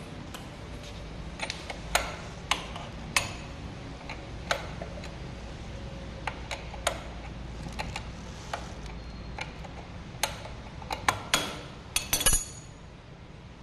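Irregular metallic clicks and taps of hand tools and metal parts being handled during a scooter wheel swap, with a quick cluster of louder clicks near the end, over a steady low hum.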